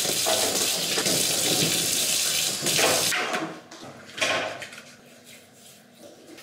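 Water tap running into a sink for about three seconds, then turned off. Wet hands then rub together and over the face to lather up for a shave, with a brief splash about four seconds in.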